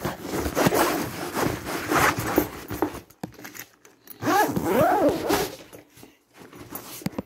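Zipper on a fabric laptop trolley bag being pulled along a compartment in two runs: a longer one through the first three seconds, then a shorter one about four seconds in.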